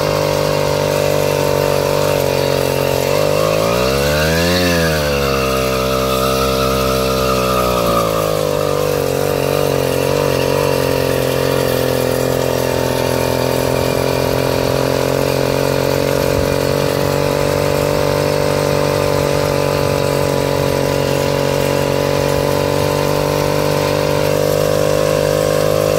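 A small engine running steadily, revving up and dropping back once about four seconds in.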